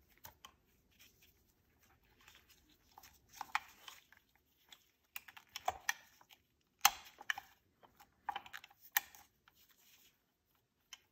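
Faint small clicks, taps and rustles of hands fitting a new piston ring onto a chainsaw piston, with a sharper click about seven seconds in.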